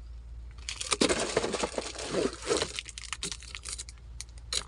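Plastic parcel packaging crinkling and rustling as it is handled, loudest for about two seconds starting a second in, with scattered small clicks and taps around it.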